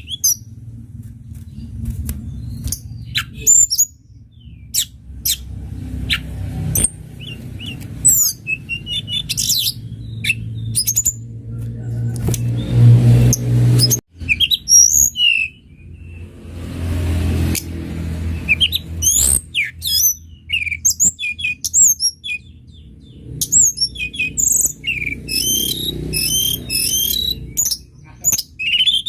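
Tledekan gunung (mountain flowerpecker) calling in quick runs of very high, thin chirps and short trills, over a low rumble that swells twice.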